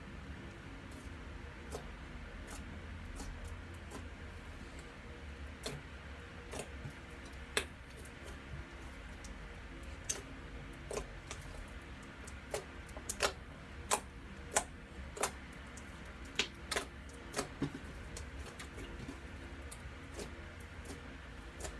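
Slime being squeezed and poked, making irregular sharp clicks and pops, most of them in quick runs in the middle of the stretch, over a low steady hum.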